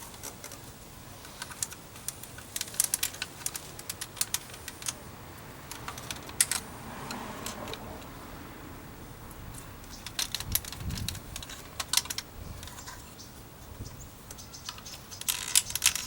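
Irregular clusters of sharp plastic clicks and scrapes as a screwdriver pries the four retaining tabs of a Toyota 4Runner power window switch out of its plastic door bezel.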